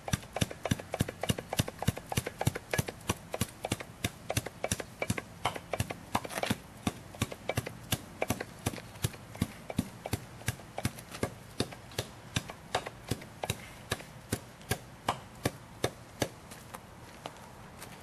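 Hand tamper's flat metal plate pounding a hot asphalt pothole patch flat, a quick run of sharp thuds, about three a second.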